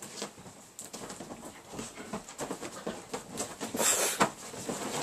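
A whippet and a boxer play-fighting on a bed: paws scuffling and blankets rustling in quick, irregular bursts, with a louder rush of rustling about four seconds in.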